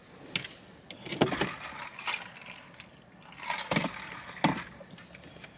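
Handling noise inside a car: a few short rustles and clacks of small things being picked up and moved about by hand, with a cluster of them about a second in and again near four seconds.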